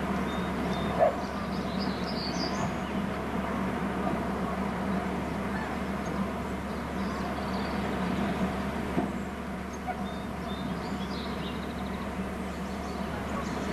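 Steady outdoor ambience from a fixed nest-camera microphone, a noise bed with a constant low electrical hum, broken by one short knock about a second in. Faint high bird chirps come about two seconds in and again near the end.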